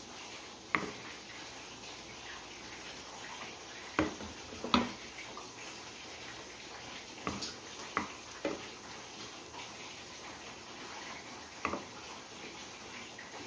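Wooden spoon knocking on the cookware as thick creamy chicken sauce is scooped and dropped onto fried potato slices in a glass baking dish: several sharp knocks, some in quick pairs, over a steady low hiss.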